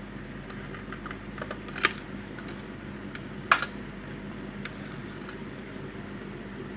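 Clicks and knocks of a hand mixer's plastic housing being handled and set down, two sharp clicks standing out about two and three and a half seconds in, over a steady background hum.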